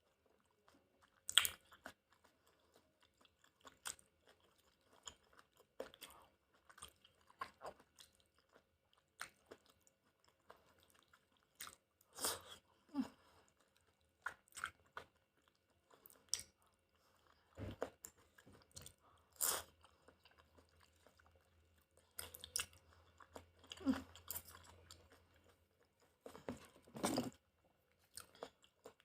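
Close-miked eating of chicken udon: chewing, with irregular wet smacking and clicking mouth sounds every second or so.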